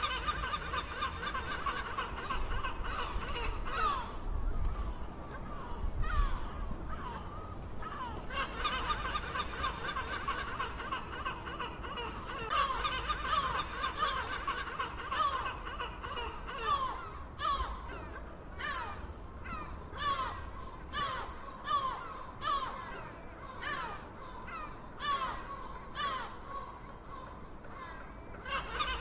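A flock of seagulls calling, many harsh calls overlapping. From about halfway through, the calls come as quick runs of short, loud cries, several each second.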